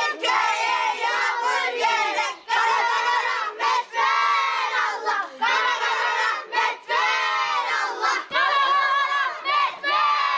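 A group of children chanting a Turkish rain-prayer rhyme loudly in unison, shouted in short phrases with brief breaks between them.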